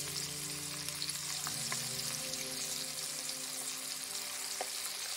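Onion pakora batter deep-frying in a pan of hot oil: a steady bubbling sizzle.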